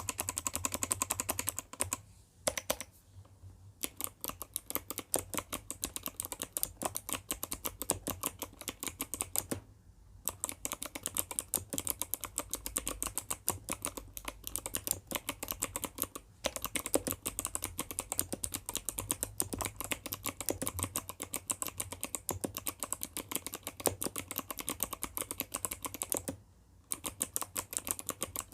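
Typing on an ABKO ADK05 mechanical keyboard with clicky Kailh Box White switches and freshly lubricated stabilizers: a fast, dense run of key clicks, broken by a few brief pauses.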